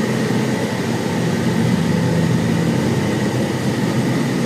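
Steady machinery hum and whir of dairy milk-room equipment running while milk is pumped into the bulk storage tanks, with a faint high steady whine above it.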